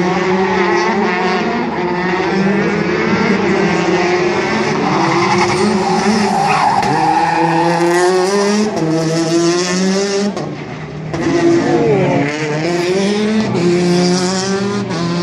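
Rally car engine revving hard, its pitch climbing and dropping again and again through the gears, with tyres skidding on tarmac. It eases briefly about two-thirds of the way in, then the revs climb again.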